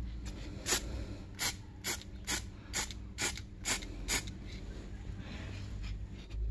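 Aerosol spray can of touch-up paint let off in short, quick puffs, about two a second, eight in all, for a light dusting coat. The puffs stop about four seconds in.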